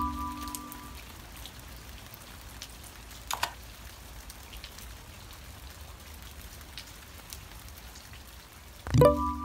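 Steady rain with scattered drops pattering. A held tone dies away in the first second, a short click sounds about three and a half seconds in, and a loud sharp sound with a brief tone comes near the end.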